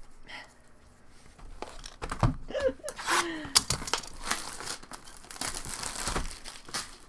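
Foil wrappers of baseball card packs being torn open and crinkled, a dense run of crackling rustles starting about three seconds in.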